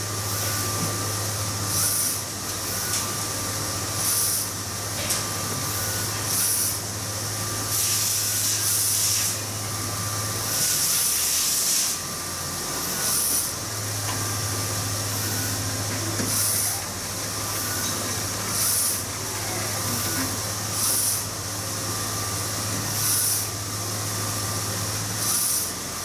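UV flatbed inkjet printer printing, its print carriage sweeping back and forth with a hissing whoosh about every two seconds. Under it a steady low hum stops about ten seconds in and comes back a few seconds later.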